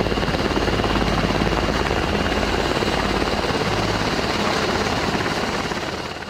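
Several UH-60 Black Hawk-type military helicopters flying low, their rotors making a fast, steady blade chop. The sound fades out near the end.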